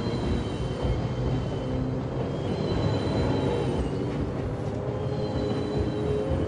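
Express train running along the track: a steady rumble of wheels on rails with faint, steady high whines above it.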